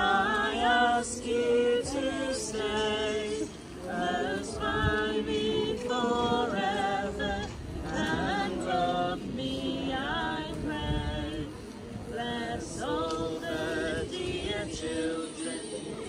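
A group of men's and women's voices singing a Christmas carol, phrase after phrase with short breaths between.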